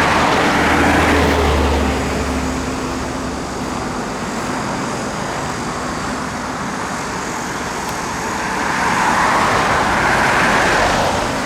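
Road traffic passing: steady tyre and engine noise that swells as a vehicle goes by at the start and again near the end, with a low engine hum in the first couple of seconds.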